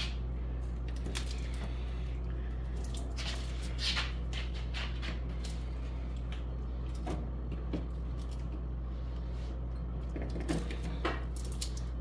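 Cardboard juice boxes being picked up and set down on a refrigerator's wire shelf: scattered soft knocks and rustles over a steady low hum.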